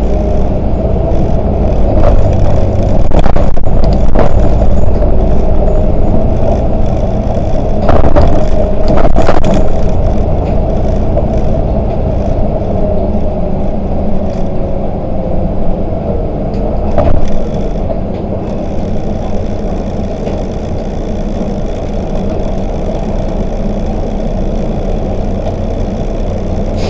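Volvo 8900LE three-axle city bus driving, a steady low rumble of engine and road noise with several sharp knocks and rattles, the loudest about 8 to 9 seconds in. The rumble eases somewhat in the last third.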